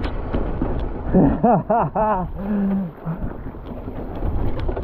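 Wind buffeting the microphone and the rumble of a mountain bike rolling over a wet, puddled trail. A rider's wordless whoops come about a second in, ending in one held note, with a few sharp clicks.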